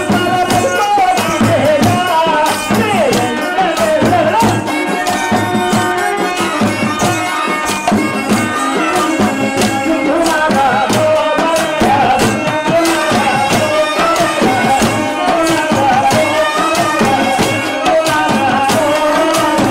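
Telugu folk music for kolatam: a winding, gliding melody over fast, steady percussion with many sharp clicking strikes.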